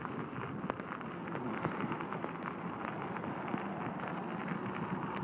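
Kickbike tyres rolling over a wet road behind four running Siberian huskies, with their paws on the road: a steady gritty rushing noise speckled with many small crackles and ticks.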